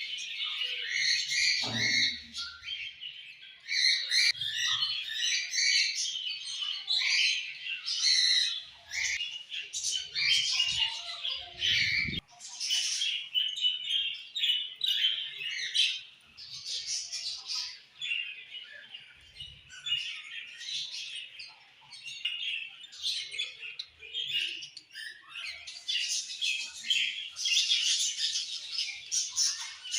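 Budgies (budgerigars) chattering and warbling continuously, a dense mix of quick chirps, trills and harsh squawks, with a couple of soft low knocks from the cage.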